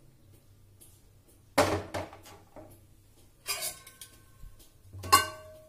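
Metal kitchenware clanking around an opened pressure cooker: a sharp knock about a second and a half in, then two ringing metal clanks, the loudest near the end, over a low steady hum.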